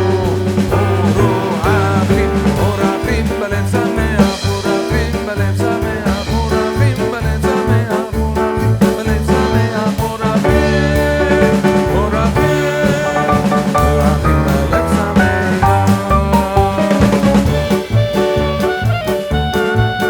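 Background music: an upbeat swing-jazz tune with drums, brass and saxophone, and a voice singing.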